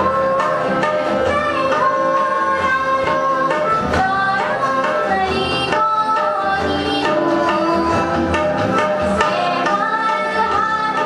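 A young woman singing a song with harmonium and tabla accompaniment: held, bending vocal notes over the harmonium's sustained chords and a steady tabla rhythm.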